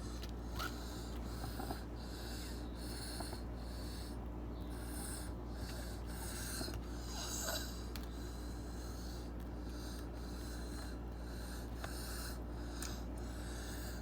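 Rhythmic, wheezy snorting breaths, about two a second.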